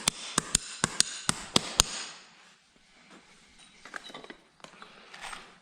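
Hammer blows in a quick, even series, about four a second, which stop about two seconds in. After that come only faint, scattered taps and clicks.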